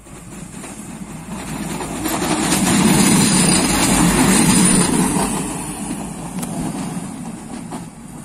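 Koleje Dolnośląskie regional passenger railcar passing close by on the track: its engine and wheel-on-rail rumble grow louder, peak about three to five seconds in and fade as it moves away. A thin high whine sounds while it is closest.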